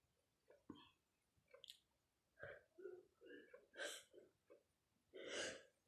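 Faint sniffs and short gasping in-breaths through the nose and mouth, with a longer gasp about five seconds in, as a sneeze builds.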